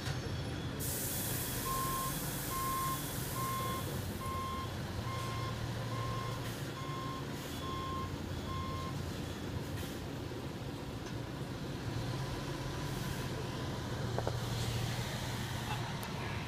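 Diesel coach engine running, with a reversing alarm beeping steadily about once a second for some nine beeps, and a long hiss of released air from the air brakes near the start, with shorter hisses later.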